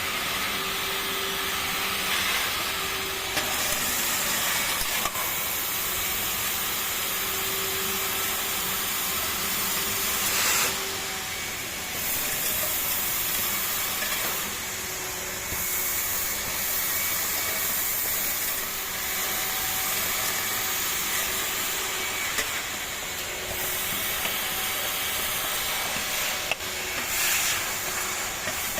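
ADS 328 HEPA industrial vacuum cleaner running, a steady rushing hiss of suction through the hose and nozzle, with brief louder surges about ten seconds in and near the end.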